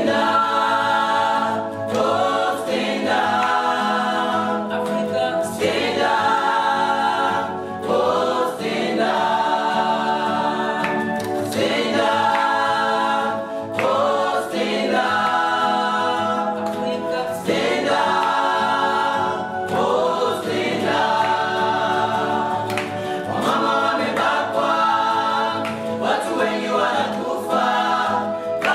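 A small choir singing a song together in harmony, phrase after phrase, over a steady low note.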